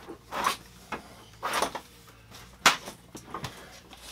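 Plastic shower curtain rustling in several short bursts as it is handled and pulled down off its rail, with a few sharp clicks from the curtain hardware.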